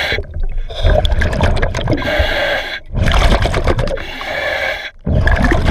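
Scuba regulator breathing underwater: hissing inhalations alternating with bubbling exhalations, in a regular cycle of about two seconds, with short pauses between breaths.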